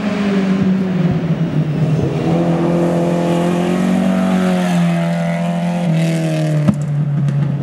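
Classic rally car engine running hard and loud, its note climbing and dipping as the revs change.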